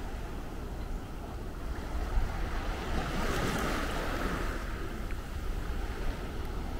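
Small sea waves washing onto the beach, one surging louder for a couple of seconds in the middle, with wind rumbling on the microphone.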